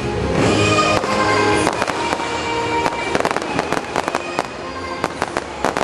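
Aerial fireworks crackling: a low rumble at the start, then quick strings of sharp cracks and pops from about two seconds in. Music with held notes plays underneath.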